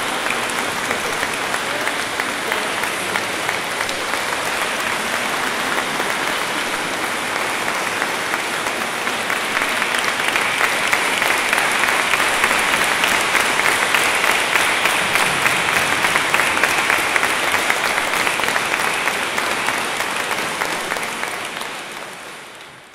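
A large crowd applauding: audience and performers clapping together, the applause growing louder about ten seconds in and fading out at the end.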